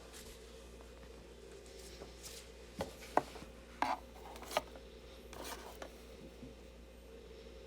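Small plastic toy pieces being handled and set down on a surface: a few light clicks and taps clustered around the middle, over a faint steady room hum.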